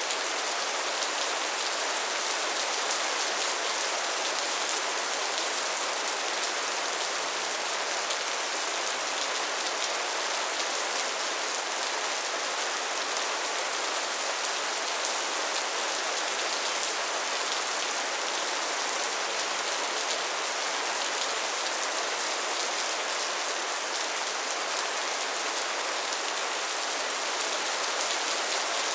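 Soft, steady rain falling, with fine pattering of drops on a surface.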